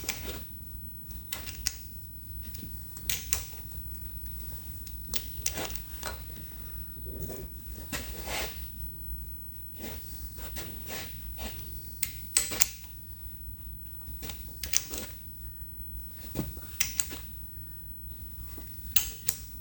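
Scattered metallic clicks and knocks of hand tools and parts being handled during gib adjustment on a metal shaper's ram, irregular and a few seconds apart, over a steady low hum.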